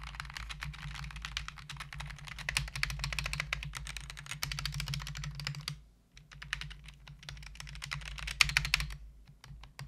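Fast typing on an AKKO 3061S HE magnetic-switch keyboard: a dense run of key clacks that pauses briefly about six seconds in, then resumes and thins out near the end.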